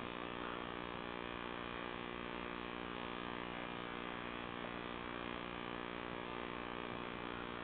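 Steady electrical hum and hiss with no distinct sounds standing out above it.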